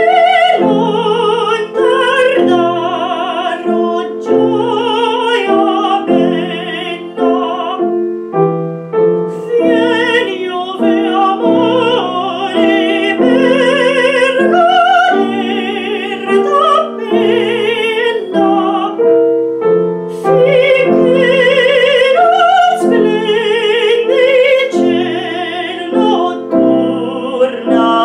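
A woman singing in an operatic classical style with strong vibrato on long held notes, accompanied by piano.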